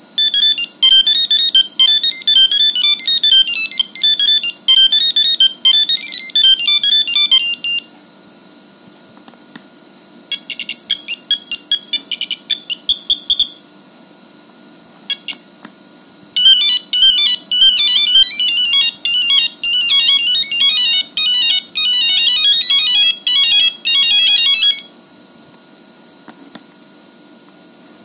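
Nokia 5210 ringtones playing through the phone's speaker. Three monophonic beeping tunes, one note at a time, play one after another with short pauses between them as each ringtone is previewed.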